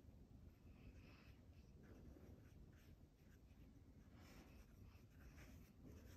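Near silence, with faint soft swishes of a watercolor brush stroking across paper.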